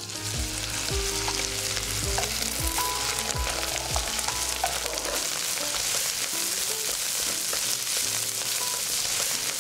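Cooked rice coated in egg yolk frying in a hot oiled wok over high heat: a steady sizzle as it is stirred and broken up with wooden chopsticks.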